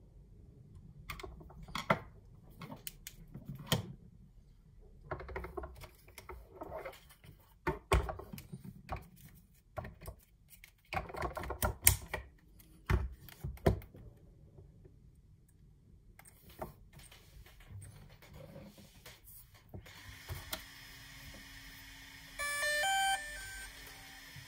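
Plastic clicks and snaps of a DJI Mavic Air's shell being pressed and clipped together, coming in clusters over the first dozen seconds or so. At about 20 s the drone powers on: a steady whir from its newly replaced cooling fan starts, and a couple of seconds later the drone plays a short run of electronic startup beeps.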